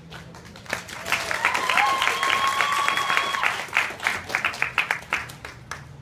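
Small audience clapping and applauding, with one long held high-pitched note from a listener, a whistle or cheer, over the middle of the applause. The clapping starts under a second in and thins out near the end.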